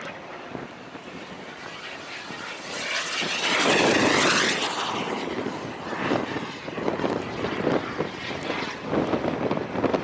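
Radio-controlled model airplane flying past close, its propeller noise swelling to a peak about four seconds in, then falling in pitch and fading as it goes by. Gusts of wind buffet the microphone through the second half.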